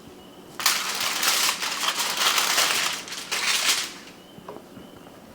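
Wrapping crinkling and crumpling as it is pulled open, for about three seconds with a short break partway through.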